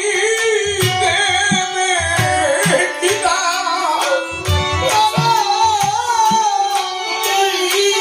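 A man singing a Bengali kobigaan song, his voice wavering and held on long notes, over hand-drum strokes and sharp percussion clicks.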